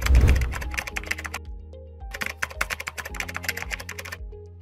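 Computer keyboard typing sound effect: two runs of rapid key clicks, the second stopping about four seconds in, over background music with a steady bass pulse. A deep whoosh at the very start is the loudest moment.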